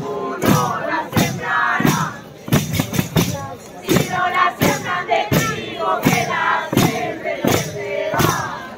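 A group of young people singing and chanting loudly together, marking a steady beat on large frame drums, roughly three strikes every two seconds.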